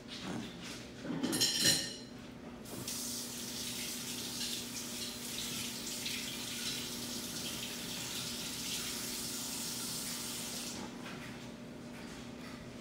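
Water tap running into a sink as a steady hiss, turned on about three seconds in and shut off about eight seconds later, with a faint steady hum underneath.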